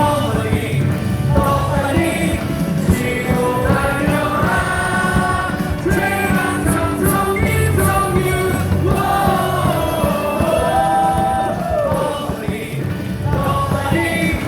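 Rock-style cheering song with singing, played loud over a baseball stadium's sound system.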